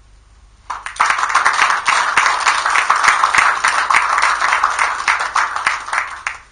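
An audience applauding. Clapping starts suddenly about a second in, holds steady, and dies away near the end.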